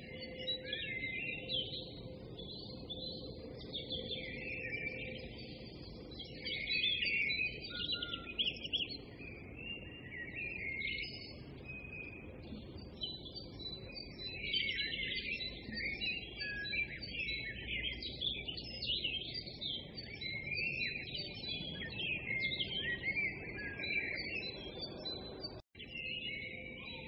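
A dense chorus of small songbirds chirping and twittering without a break, over a low steady rumble. It cuts out for an instant near the end.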